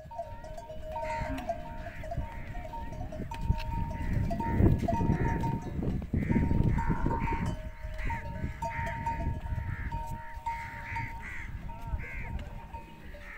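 Camel herd with their neck bells ringing in a steady, broken jangle. Short high calls come repeatedly over it, with a low rumble underneath.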